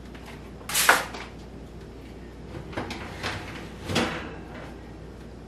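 Kitchen clatter at an open oven: a sharp clink about a second in, a few light knocks, then a knock with a short ring as the oven rack holding a glass baking dish is pushed back into the oven about four seconds in.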